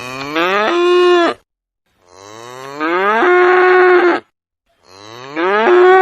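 Cow mooing three times, each moo rising in pitch and then holding a steady tone; the last is still sounding at the end.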